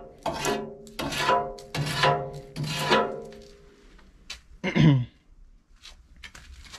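A cleaning tool scraping soot off the inside of a steel Mimsan solid-fuel boiler, five strokes in about three seconds, each one setting the boiler's metal ringing. About five seconds in comes a single louder, low sound that slides down in pitch.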